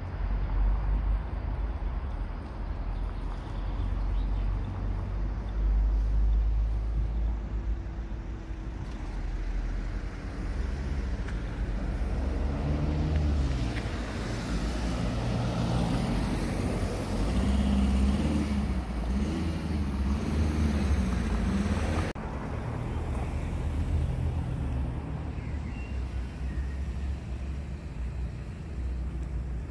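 City street traffic: a steady low rumble of road traffic, with a car driving past in the middle, its engine note rising and then falling away.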